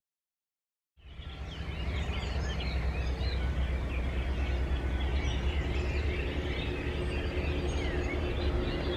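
Many birds chirping and singing over a steady low rumble. It cuts in abruptly about a second in, after silence.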